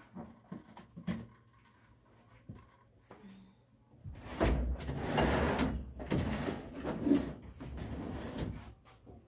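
Household handling noises: a few light knocks, then, from about four seconds in, several seconds of loud rustling and scraping with knocks, like a cupboard or drawer being gone through.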